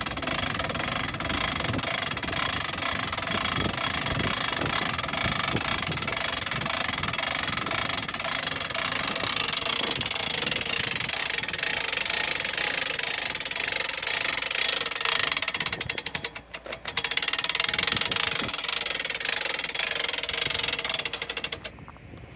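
Boat trailer winch being wound to haul a boat up onto the trailer, a steady rapid mechanical noise. It pauses briefly about 16 seconds in and stops shortly before the end.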